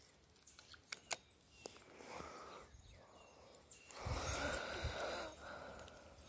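Quiet outdoor background with a few faint, small clicks in the first few seconds and two soft swells of hiss in the middle and later on.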